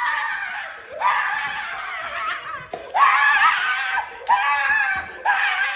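A young man screaming in a string of long, high, wavering cries with short breaks between them, in a small room.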